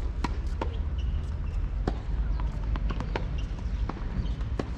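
Tennis balls struck by rackets and bouncing on a hard court, from more than one court: irregular sharp pops, several a second, over a steady low rumble.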